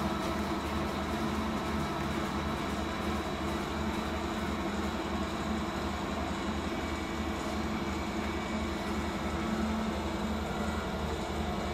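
Kronen KUJ onion-ring slicing machine running steadily, a constant motor hum with a regular low throb.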